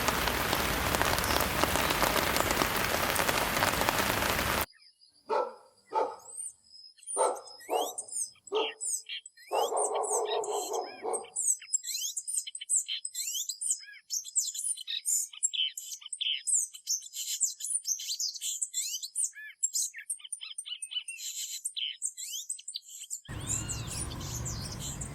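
Steady rain for the first few seconds, then an abrupt cut to a chorus of birds chirping and calling over an otherwise quiet background. Near the end it cuts again, to low, even outdoor noise.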